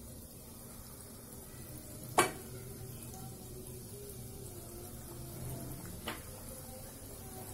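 Gulgula dough balls deep-frying in hot oil in a kadhai, a steady sizzle as more balls of dough are dropped in by hand. Two sharp clicks cut through it, a loud one about two seconds in and a softer one near six seconds.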